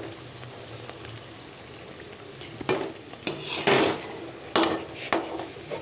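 Dalpuri deep-frying in oil in a metal pan, a low steady sizzle; from about two and a half seconds in, a metal utensil knocks and scrapes against the pan several times.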